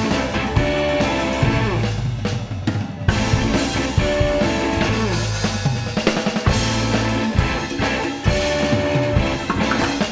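Live band music without vocals: a drum kit and bass drive an instrumental passage, with a few held melody notes over it.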